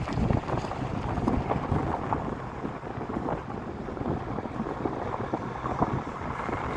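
Wind buffeting the microphone: an uneven low rumble with irregular gusts and knocks.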